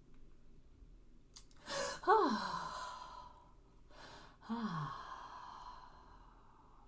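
A person taking two deep breaths, each let out as an audible sigh that falls in pitch, the first about two seconds in and louder, the second about four and a half seconds in.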